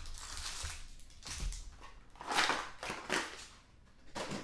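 Trading card packaging being handled and opened: a few short bouts of crinkling and tearing, loudest a little past the middle.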